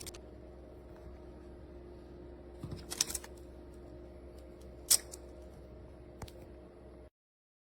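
Mini plastic magnetic tiles clicking as they are handled and snapped together or set down: a short cluster of sharp clicks about three seconds in, then single clicks near five and six seconds, over a steady low hum. The sound cuts off abruptly near the end.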